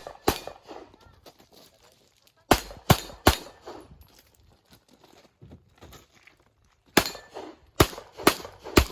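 Pistol shots from a single-stack handgun in a practical-shooting course of fire, about eight sharp cracks in all. There is one near the start, a quick group of three a couple of seconds later, and after a pause a string of four about half a second apart.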